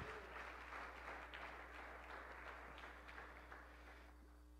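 A congregation applauding lightly, the clapping fading away over about four seconds.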